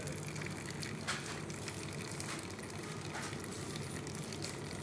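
Costa self-service coffee machine running while it dispenses coffee into a paper cup: a steady hum with a few faint clicks.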